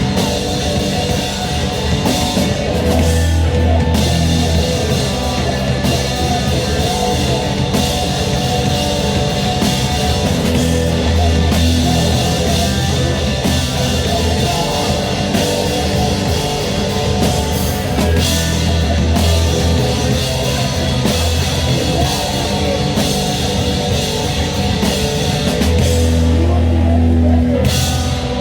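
Rock band playing loud, heavy music with distorted guitars, held bass notes and a drum kit.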